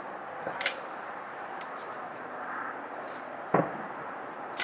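Fireworks heard from a distance: a faint pop about half a second in, then one sharp boom about three and a half seconds in that dies away over a fraction of a second, over a steady background hiss.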